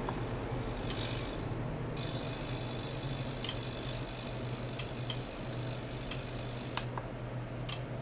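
Ultrasonic oscillation in a water-filled tank giving a high, rattling hiss that starts about a second in, grows stronger at two seconds and cuts off suddenly near seven seconds, with a few clicks around the start and stop. A low steady hum runs underneath.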